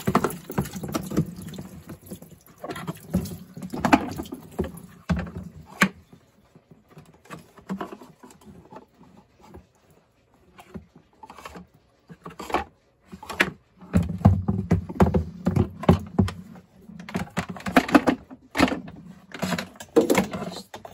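Plastic shop vac lid and filter cage being rinsed and handled in a utility sink: water splashing, with irregular knocks and clatters of plastic against the sink, busiest in the second half.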